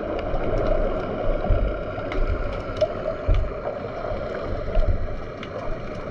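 Underwater sound picked up by a submerged camera: a steady muffled water rush with irregular low thumps and scattered sharp clicks.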